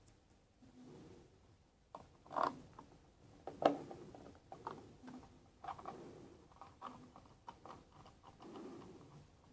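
Small clicks, taps and scrapes from the plastic case of a TM-902C digital thermometer being handled and put back together, with a louder click about two and a half seconds in and a sharper one near four seconds.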